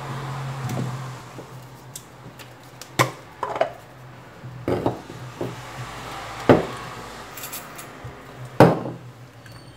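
A smartphone and small tools being handled on a silicone repair mat: several sharp knocks and clicks, a few seconds apart, over a low steady hum.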